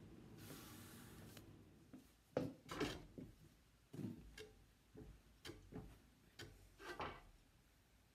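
Sponge rubbing the rim of a leather-hard clay funnel turning on a potter's wheel to smooth its edge. A soft hiss about half a second in, then a run of irregular scuffs and rubs, the loudest at about two and a half seconds.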